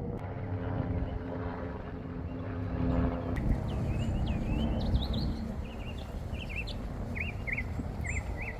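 A low outdoor rumble with a steady motor hum for the first three seconds or so. After that, small birds chirp repeatedly, in short quick notes.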